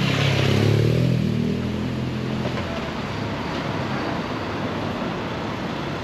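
A motor vehicle's engine passing close by, loudest about a second in and fading away over the next couple of seconds, leaving a steady street background.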